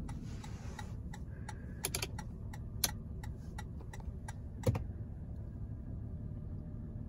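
The 4Runner's 4.0 L V6 idling in Park, a faint steady low hum heard inside the cabin. Light scattered clicks sound over it, the most distinct about three and almost five seconds in.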